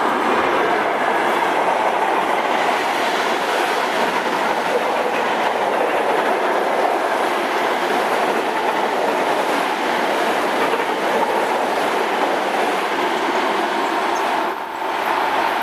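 Train running past on the rails: a loud, steady noise of wheels on track, with a brief dip near the end.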